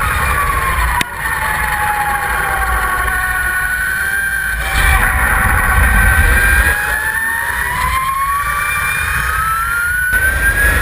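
Lightning LS-218 electric superbike's drivetrain whining at speed over a rush of wind on the onboard microphone, with no combustion engine note. The whine falls in pitch over the first few seconds, holds low, then climbs steadily through the second half as the bike speeds up.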